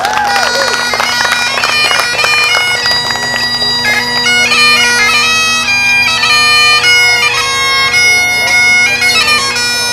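Bagpipes playing a tune, the melody stepping from note to note over steady drones, with clapping and cheering in the first couple of seconds.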